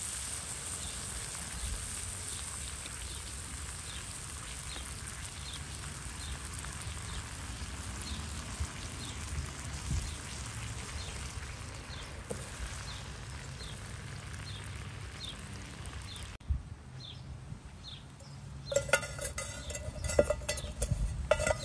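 Chicken sizzling steadily in a frying pan over a charcoal brazier. The sizzle cuts off about sixteen seconds in. Near the end, a metal pot clanks and rings several times as it is set on the brazier.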